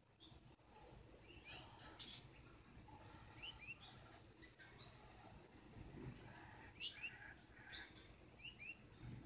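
Gouldian finch calling in four short bursts of high chirps, a couple of seconds apart. The keeper takes the calls for the hen scolding her mate from inside the nest box.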